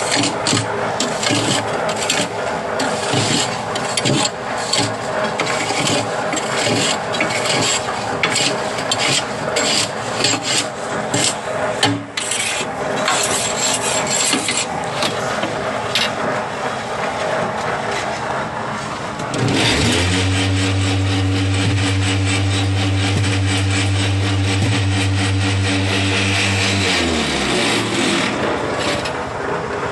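Steel rod raking and scraping concrete mix across a block machine's steel mould box in quick rasping strokes. About two-thirds through, the machine's electric vibrator motors start with a loud steady hum to shake down the mix, then wind down and stop near the end.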